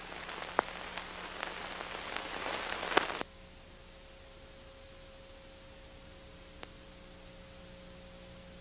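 Steady hiss of an old analog recording with scattered crackles and a faint steady hum. About three seconds in the hiss drops to a lower, even level with no clicks.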